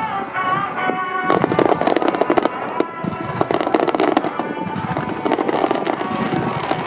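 Aerial fireworks going off in rapid volleys of sharp cracks and crackling, starting about a second in, over music.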